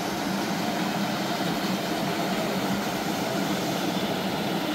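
Small waterfall on a river, rushing steadily as it pours into a pool.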